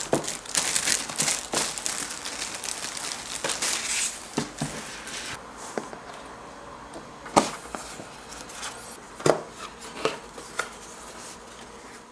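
Packaging being handled, crinkling and rustling for the first five seconds or so, then a few scattered sharp clicks and knocks.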